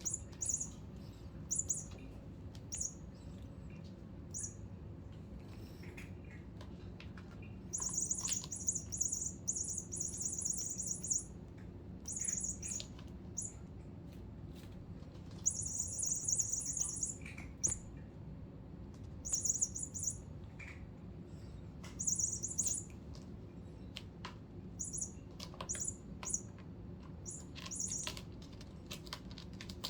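Toy rat squeaking: high-pitched chirps in quick pulsing runs that come again and again, some brief and some lasting a few seconds, with scattered light clicks and taps.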